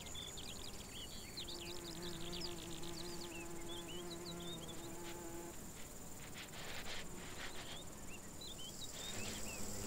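A poppy mason bee buzzing in a steady hum for about four seconds, then a few soft scratching clicks. Behind it is a faint field ambience: small birds twittering and a high, steady insect trill.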